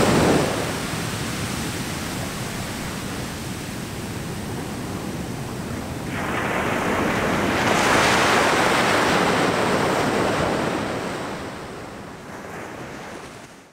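Ocean surf washing onto a sandy beach: a steady rush of waves, with a louder wave breaking about six seconds in, then the sound fades out near the end.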